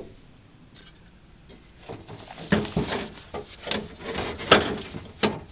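Parts being handled and fitted at a truck door hinge: a run of irregular knocks and scraping rubs starting about two seconds in, after a quiet stretch.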